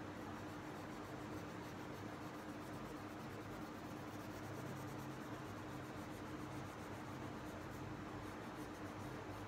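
Crayon rubbing on paper as a drawing is coloured in, over a steady low hum.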